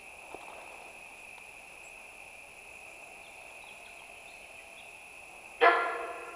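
Sambar deer alarm call: a single loud honk, sudden and fading within a second, about five and a half seconds in. It is the deer's warning that it has sensed danger.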